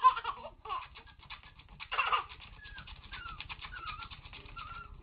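A baby laughing in bursts, loudest about two seconds in, then a quieter run of fast, pulsing giggles with short squeaky rising notes.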